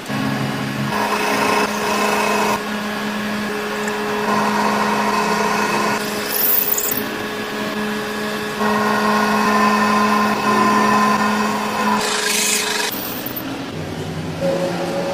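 A power tool or machine tool runs with a steady hum while it scrapes or cuts at the metal of a clutch flywheel in stretches of a few seconds each. A brief loud hiss comes about twelve seconds in.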